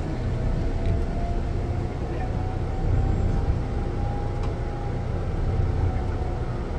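Inside a moving bus: a steady low rumble of engine and road noise, with a faint steady whine above it.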